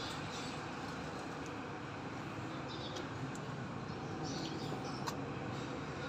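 FIAT 110 tractor's six-cylinder diesel engine running steadily. A few faint high chirps come through in the middle, and there is a single sharp click about five seconds in.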